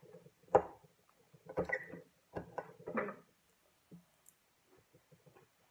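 Eating sounds: a metal fork clicks and scrapes against a plate of stir fry a few times in the first three seconds, with brief mouth and chewing noises, then only faint small ticks.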